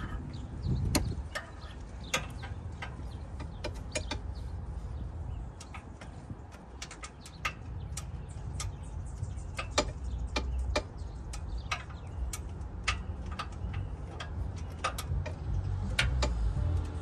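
Sharp, irregular clicks and taps of hand tools working in a car's engine bay, a few every second, as a spark plug is worked loose on the cramped side of the engine. A low rumble runs underneath.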